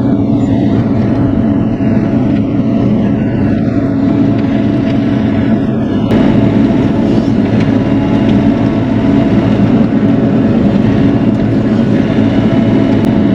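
Bobcat E42 mini excavator's diesel engine running steadily under work. It gets slightly louder about six seconds in.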